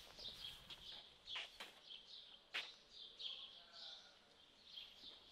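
Faint birdsong: many short, high chirps repeating throughout, with a few footsteps on pavement.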